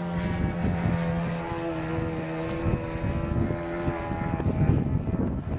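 Radio-controlled model airplane's motor and propeller running with a steady whine that steps up in pitch about a second and a half in, over rough rumbling noise.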